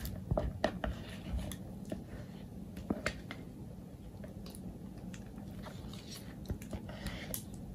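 Plastic piping bag crinkling, with scattered soft clicks and squishes as it is filled with whipped soap frosting.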